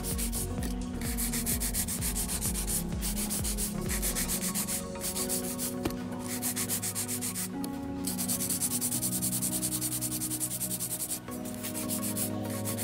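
Hand nail file rasping quickly back and forth along the side of a long dip-powder nail, tapering it into a coffin shape: a fast, even scratching that stops briefly several times.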